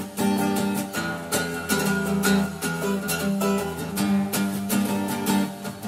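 Background music with quick, evenly spaced notes.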